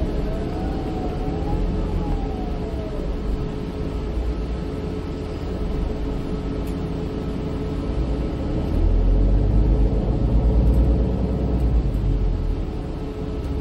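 Inside a MAN Lion's City 12C EfficientHybrid city bus under way: steady drivetrain rumble and road noise with a constant hum. A whine rises and falls over the first few seconds. The deep rumble swells from about nine seconds in and eases again a couple of seconds later.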